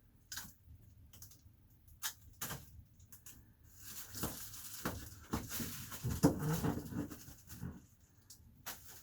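Handling noise of Reflectix foil bubble insulation and duct tape being worked into place: a few scattered clicks and crinkles, then a denser stretch of crinkling and rustling in the second half that dies down near the end.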